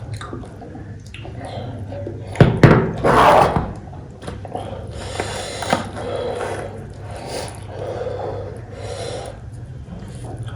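Close-up eating sounds from picking apart and eating a cooked goat head: scattered clicks, scrapes and wet mouth noises, with one loud noisy burst about two and a half seconds in. A steady low hum runs underneath.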